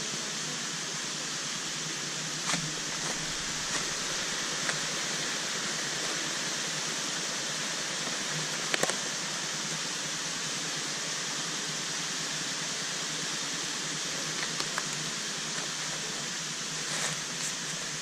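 Steady rushing of water from small waterfall cascades, with a few faint taps and clicks over it.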